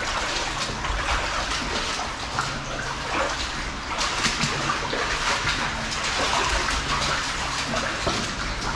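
Footsteps wading through shallow running water in a corrugated-iron culvert, with irregular splashes over a steady rush of water.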